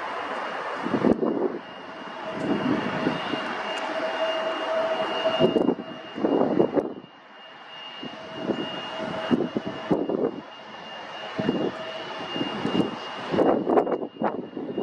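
Airliner engines running with a steady high whine, broken by irregular gusts of wind buffeting the microphone.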